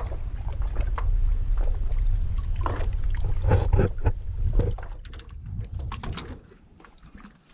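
Water lapping against a paddleboard, with a low wind rumble on the microphone and scattered knocks and splashes as gear is handled on the board. It eases off after about five seconds.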